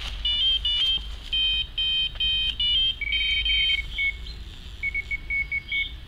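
Electronic carp bite alarm beeping in a fast run of steady high beeps as a fish takes the bait and pulls line. From about three seconds in, shorter, lower-pitched pips take over.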